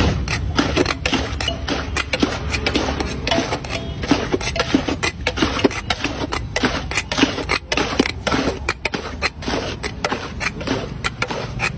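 A steel bowl and utensil scraping and knocking against a large aluminium pan of poha as it is mixed and scooped, in rapid, irregular clicks and scrapes, over a steady low hum.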